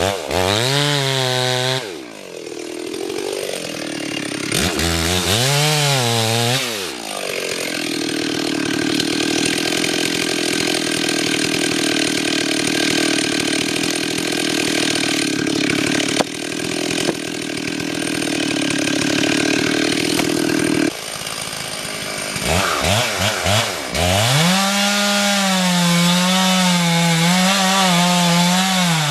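Two-stroke chainsaw revving up and down several times, then running steadily at high speed for about fourteen seconds while cutting into a poplar trunk, then revving again and running hard under load to the end.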